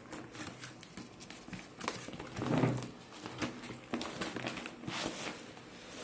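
Packaging of a stationery kit being handled and opened: crinkling with scattered small clicks and taps, and one louder dull sound about two and a half seconds in.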